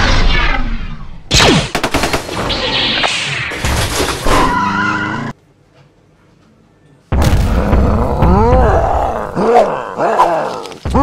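Sound effects: a loud noisy crash with a quick run of sharp bangs in the first half, then a near-silent pause, then a monster's growling roar whose pitch rises and falls, starting about seven seconds in.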